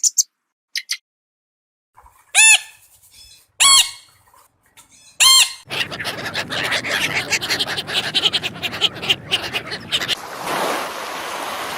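Animal calls: two short high chirps, then three loud calls about a second and a half apart, each rising and falling in pitch, followed by a long run of rapid chattering calls over a noisy background.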